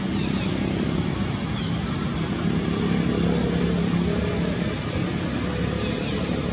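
Steady low rumble of a running vehicle engine, with a few faint, short high chirps over it.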